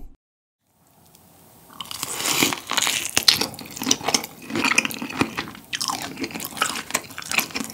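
Close-up mouth sounds of biting and chewing a grilled Iberico bellota pork rib chop: crunchy bites and wet, squishy chewing that start about two seconds in and keep going. A brief tone sounds at the very start, then about a second of silence.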